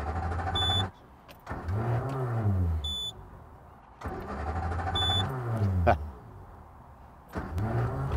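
Amphicar's Triumph four-cylinder engine being revved through its exhaust, the note rising and falling in repeated surges about every three seconds, with quieter gaps between.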